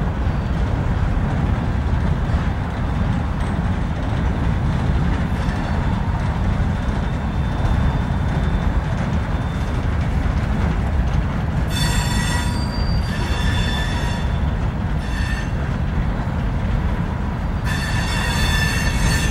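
Freight train of hopper cars rolling past with a steady low rumble. High-pitched wheel flange squeal cuts in about twelve seconds in, briefly again a few seconds later, and again near the end.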